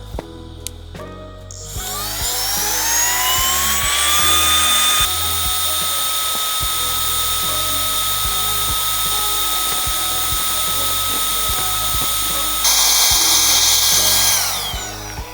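Small electric motor spinning up with a rising whine and running steadily at a high pitch. Near the end it grows louder and harsher for a couple of seconds, then winds down with falling pitch.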